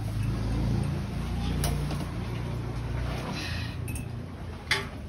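Bowls, pots and spoons clinking as noodle soup is dished up at a boat kitchen, with one sharp clink near the end, over a low steady rumble.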